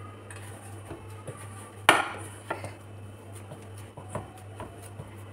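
Hands kneading a chickpea-flour and paneer dough in a stainless steel bowl, with scattered knocks and clinks of the steel bowl, the loudest about two seconds in.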